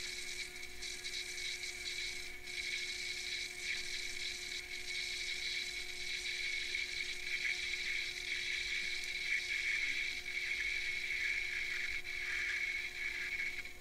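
Sherline lathe running while a parting tool cuts off a brass ratchet wheel: a steady motor whine with a high cutting hiss, a little stronger in the second half.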